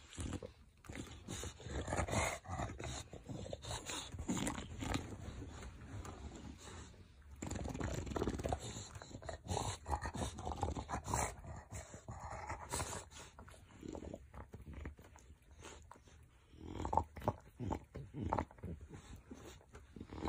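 English bulldog breathing noisily and grunting while it bites and tugs at a blanket, with fabric rustling and irregular soft clicks of mouthing throughout.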